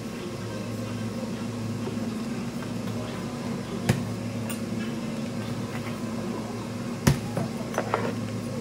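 Steady electrical appliance hum, with two sharp knocks about four and seven seconds in, followed by a few lighter clinks.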